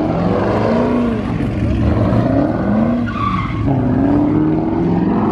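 Chevrolet Camaro engine revving hard, its pitch rising and falling again and again, over the steady hiss of tyres skidding on the pavement during a burnout or donuts.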